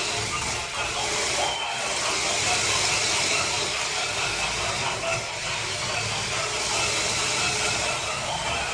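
Toy remote-control tank running its demo mode: small electric drive motors and tracks running, with the toy's built-in engine sound effects playing from its speaker, steady throughout.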